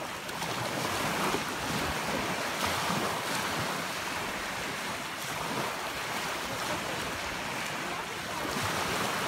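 Small sea waves breaking and washing over the sand at the shoreline, with wind buffeting the microphone.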